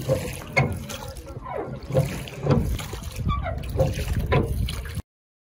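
Oars working in home-made bent-exhaust-pipe oarlocks on an aluminium Grumman canoe while rowing, with repeated knocks about twice a second over water sloshing. The sound cuts off suddenly near the end.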